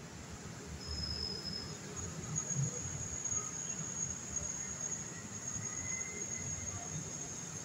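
Low, steady rumble of street traffic from below, with a thin, high-pitched steady whine that starts about two seconds in and holds for about five seconds; a shorter, slightly lower whine sounds about a second in.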